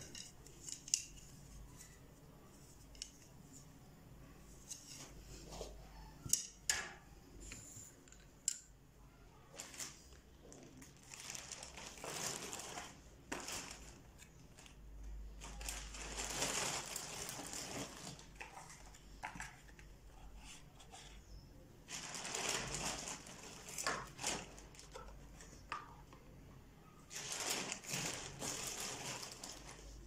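Plastic shopping bag rustling in four stretches of a few seconds each as items are pulled out of it, with scattered light taps and knocks of things being handled and set down on a table, mostly in the first few seconds.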